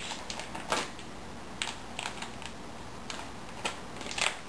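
Irregular light clicks and taps, about seven over four seconds, as bacon bits are added to a bowl of pasta.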